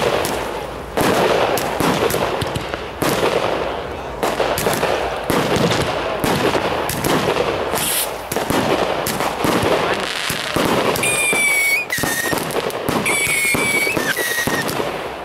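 Aerial fireworks going off: repeated bangs of shells bursting with dense crackling between them. A few short high whistles sound about eleven to fourteen seconds in.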